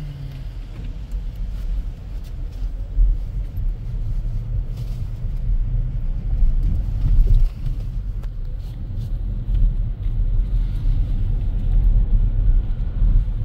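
Road and tyre rumble inside the cabin of a Ford Mustang Mach-E, an electric car, while it drives. The rumble grows louder over the first few seconds as the car picks up speed, then holds steady.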